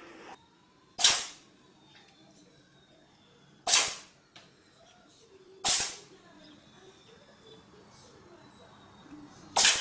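An animal sneezing four times: short, sharp sneezes a few seconds apart, about one, four, six and ten seconds in.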